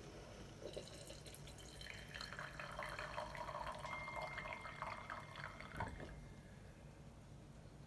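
Coffee streaming and dripping into a mug as hot water is pressed through a K-cup in a Presto MyJo hand-pump coffee press. It starts about a second in and stops about six seconds in.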